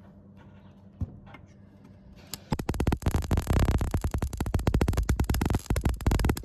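MIG welder arc crackling and buzzing in an uneven run of stutters, starting about two and a half seconds in, on a first attempt that comes out as a poor weld. Before it, the welder's low steady hum and a single click.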